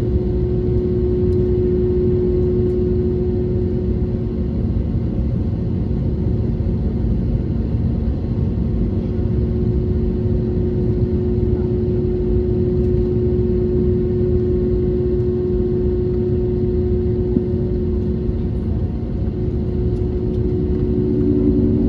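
Airbus A320neo's engines at idle, heard inside the cabin from a seat over the wing: a steady rumble and hum with two steady low tones, before the takeoff roll.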